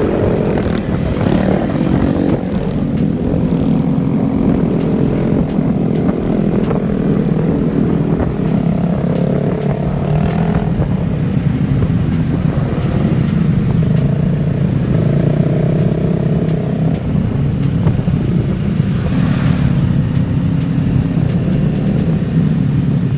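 Automatic motor scooter engines running at a steady cruising speed in a group ride, a constant droning hum with low rumble, the filming rider's own a Yamaha NMAX.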